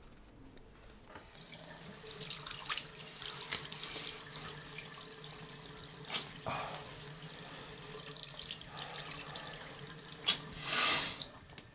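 Water running from a bathroom tap into a sink, with splashing as hands scoop it up to wash the face; the loudest splash comes near the end.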